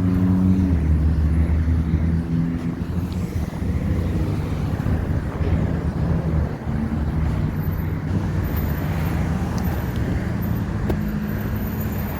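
Road traffic: a motor vehicle's engine running close by with a steady low hum, over the rough noise of street traffic.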